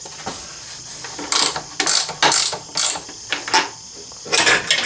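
Ratchet wrench clicking in short, irregular bursts while backing out the Allen bolt that holds the upper side of a motorcycle muffler.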